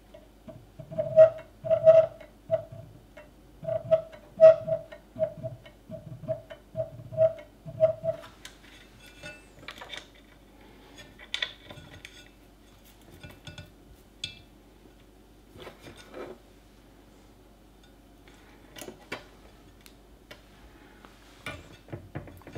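A partly assembled TWOTREES TT-1s 3D printer's mechanism is being worked by hand at the Z-axis carriage. For about the first eight seconds there is a run of loud, slightly uneven clicks, each with a short tone, one or two a second. After that come scattered lighter clicks of handling. It is not a great noise.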